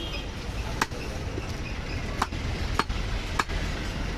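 Butcher's cleaver chopping through a mutton leg, four sharp strokes spaced unevenly over a steady low background hum.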